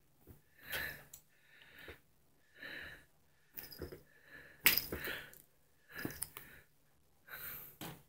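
Blanket fabric rustling in short bursts, about one a second, as it is rubbed and shifted over a cat hidden underneath.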